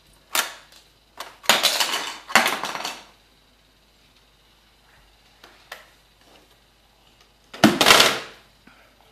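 Hard plastic toy knocking and clattering against a refrigerator door in several bursts, with the loudest clatter near the end as it drops onto the wood floor.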